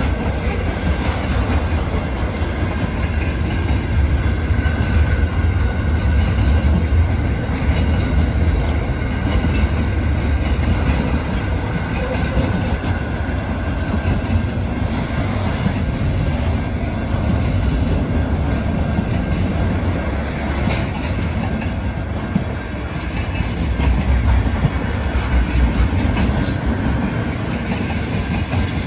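Intermodal freight train's container flat wagons rolling past, a steady rumble strongest at the low end with occasional knocks from the wheels on the rails.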